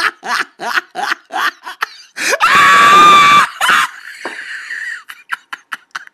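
A man laughing hysterically in quick bursts, about three a second. About two seconds in the laughter breaks into a loud, steady, high-pitched shriek lasting about a second, followed by a breathy, hissing wheeze.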